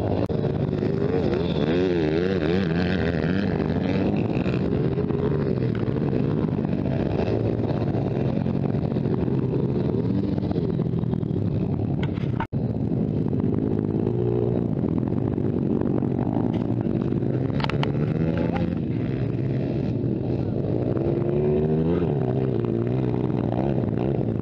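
Motocross motorcycle engines revving up and down as the bikes race, the pitch rising and falling continuously. The sound cuts out for an instant about halfway through.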